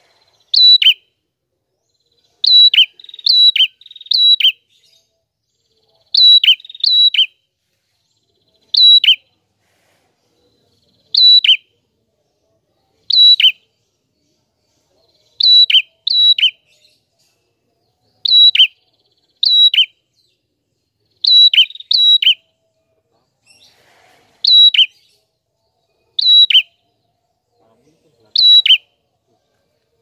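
A red-headed prenjak, a small caged songbird, calling over and over in a loud, clear voice. Each call is a short, sharp chirp that slides downward. The calls come every second or two, sometimes two or three in quick succession.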